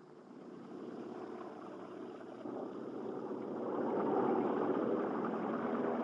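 Propeller engines of a Breda-Zapata BZ.308 airliner running, growing steadily louder as the plane comes in.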